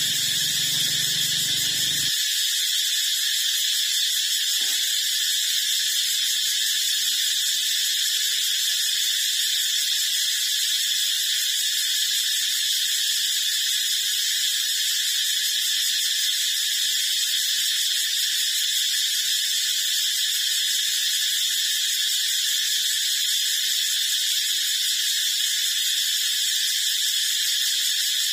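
A steady high-pitched hiss with a faint whine, unchanging in level and pitch. A faint low rumble under it stops about two seconds in.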